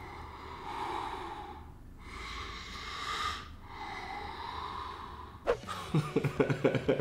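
A man imitating heavy, raspy breathing with his mouth as a foley effect for an out-of-breath or menacing person: three long, drawn-out breaths, each swelling and fading. Short broken vocal sounds follow near the end.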